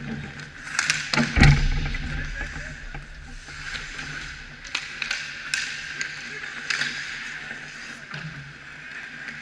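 Ice hockey play at the goal: skates scraping the ice and sharp clacks of sticks and puck, several times, with one heavy thump about a second and a half in, the loudest sound.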